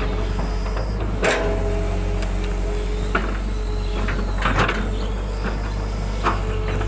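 Excavator's diesel engine running steadily with a low hum and a steady hydraulic whine, broken by several short knocks and clanks from the working bucket and arm.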